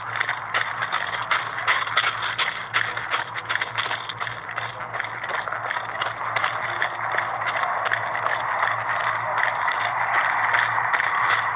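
Police body-camera audio of the wearer moving about: equipment and keys jangling and rattling with the steps, in a run of irregular clicks over a steady hiss.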